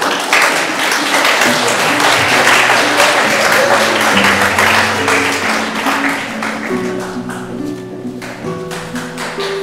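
Audience applause that fades out over the first six seconds or so, over instrumental music with long held notes that carries on.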